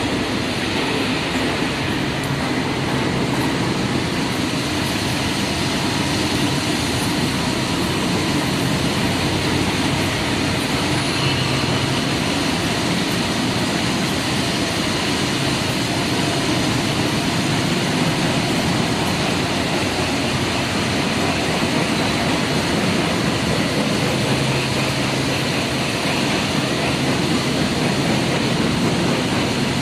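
Loud, steady din of heavy machinery running in a factory workshop: a dense, even noise with a low hum that comes and goes.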